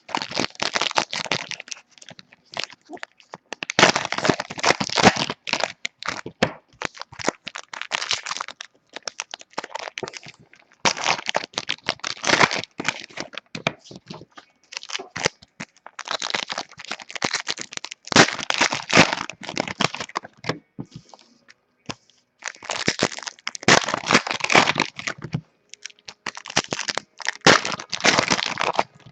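Foil trading-card pack wrappers being torn open and crinkled, in repeated bursts of crackling handling with short pauses between them.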